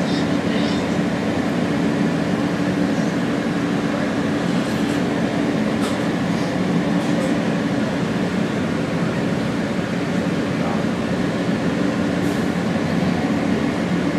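Inside an R160 subway car running along the line: steady rumble and rail noise with a constant low hum.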